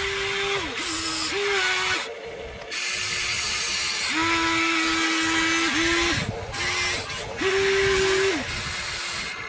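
Huina radio-controlled toy excavator's electric motors whining in stop-and-go stretches of about a second each, the pitch stepping slightly as the boom, arm and bucket work and the upper body swings, over a steady hiss.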